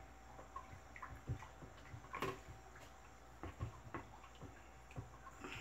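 Wooden spoon stirring a caustic-soda soap-gel mixture in a plastic bucket: faint, irregular soft taps and clicks of the spoon against the bucket, a few to the second.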